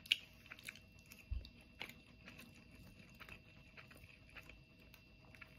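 Quiet chewing with scattered small clicks of a metal fork scraping rice and crab meat out of a crab shell, a sharper click just after the start and a soft low thump about a second and a half in.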